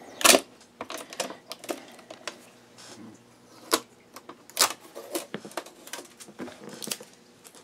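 Fingernails and fingers clicking, tapping and scratching on the plastic body of a new embroidery sewing machine while picking off packing tape: irregular light clicks, with one louder knock just after the start.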